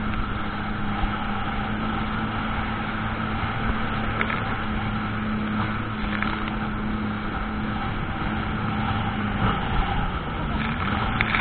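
Jet ski engine running at a steady pitch over a constant rushing noise.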